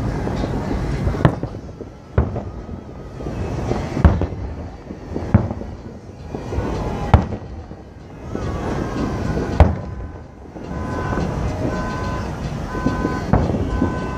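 Aerial fireworks shells bursting in the distance: several sharp bangs a second or two apart over a steady background rush. Near the end, short two-tone beeps repeat several times.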